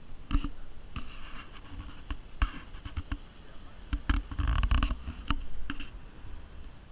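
Exhaust of a Cupra 300's 2.0-litre turbocharged four-cylinder, resonator deleted, popping and crackling: irregular sharp bangs and cracks over a low rumble, bunched into a dense run about four seconds in.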